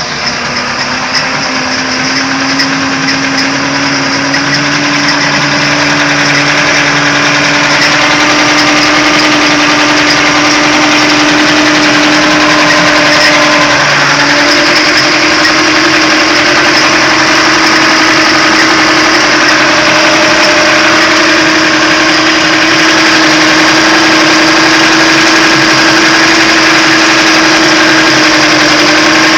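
Bayliner 192's engine running with a steady pitched hum that gets louder over the first few seconds, rises slowly, and steps up in pitch about halfway through: the strange engine noise the owner is trying to identify.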